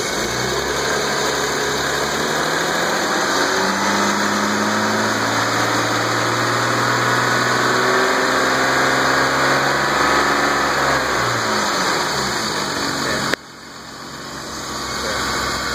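BMW E36 M3 straight-six engine running, brought up to a steady higher speed for several seconds and then settling back to idle, with a light lifter tick that is fading as the engine warms up. The sound drops out sharply about 13 seconds in and comes back up over the next couple of seconds.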